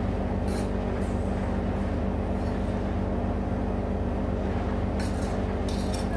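Electric air cooler's fan motor humming steadily, with a few brief rustles about half a second in and near the end.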